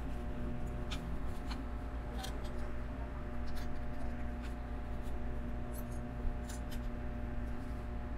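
Small plastic clicks and light rattling of LEGO pieces being handled and pressed together, a few irregular clicks a second, over a steady low hum.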